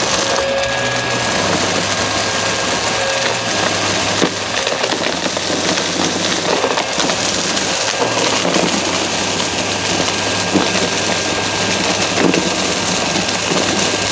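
Upright vacuum cleaner running steadily, with irregular crunchy crackles as debris is sucked up.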